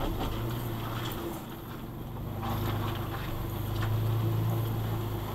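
Toyota FJ Cruiser's 4.0-litre V6 running at low revs as the truck crawls slowly up a loose climb, heard from inside the cab. A steady low hum that swells briefly about four seconds in as it pulls harder.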